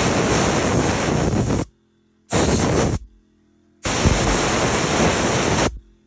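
Handheld air blower blasting sawdust off a sawmill's control box and engine, in three rushing bursts that start and stop abruptly: a long one that cuts off under two seconds in, a short one, then another of about two seconds.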